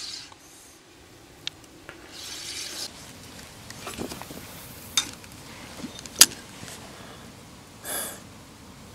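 Spinning reel being wound in short spells while a marker weight is dragged across the bottom to find depth changes, with several sharp clicks of reel and rod handling. The loudest click comes about six seconds in, and a brief rush of noise follows near the end.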